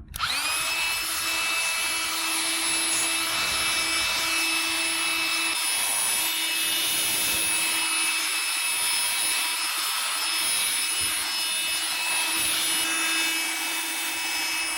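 Battery-powered electric air gun running steadily, a loud rush of air with a high motor whine, blowing dust and lint out of a typewriter. It switches on suddenly at the start.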